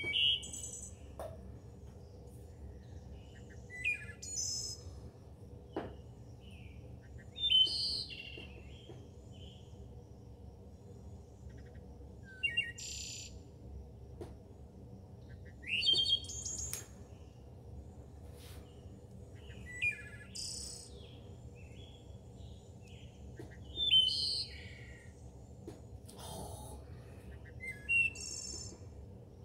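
A songbird singing short, high chirping phrases, one about every four seconds, over a low steady background hum.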